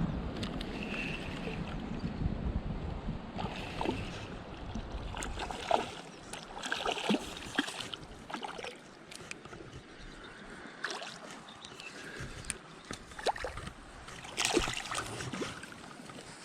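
River water gurgling and splashing, with wind buffeting the microphone in the first few seconds, then scattered short splashes and knocks.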